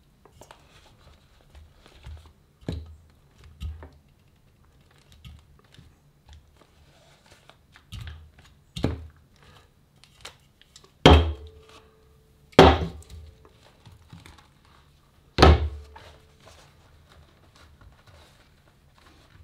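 Drink cans and a small box knocking as they are set down and moved on a table, with the vinyl of an inflatable crinkling under hands. Three loud knocks come in the second half, each followed by a short ringing tone.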